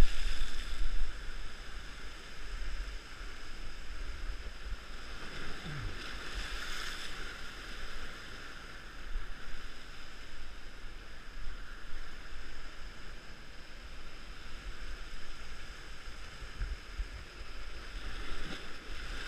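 Ocean swell surging and washing through a narrow rock gutter, with a louder surge about seven seconds in. Wind rumbles on the microphone underneath.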